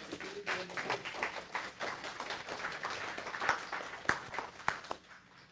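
Congregation applauding, many hands clapping together and dying away near the end.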